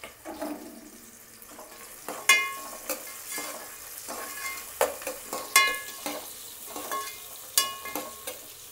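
Sliced onions, green chillies and cashews sizzling as they fry in oil in an aluminium pot, while a ladle stirs them. The ladle knocks against the pot several times with ringing metallic clinks.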